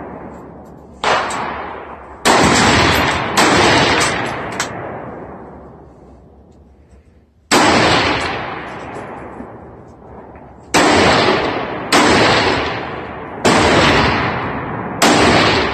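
Rifle shots at a shooting range: about eight loud cracks at irregular intervals, each with a long echoing decay, and one fainter pop among them.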